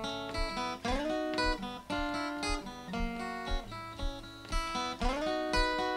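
Intro music: an acoustic guitar playing a run of plucked notes and strums, with several notes slid up into.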